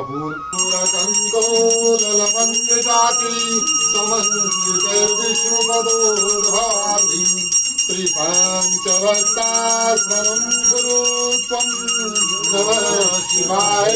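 Puja hand bell rung rapidly and continuously, starting about half a second in, over a man's ongoing chant of Sanskrit mantras.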